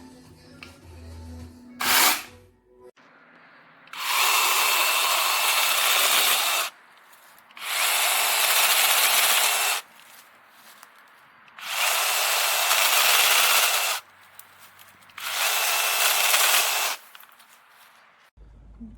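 Bosch EasyChain 18V-15-7 battery mini chainsaw, with its brushless motor, running in four bursts of about two and a half seconds each with short pauses between. A brief sound comes about two seconds in.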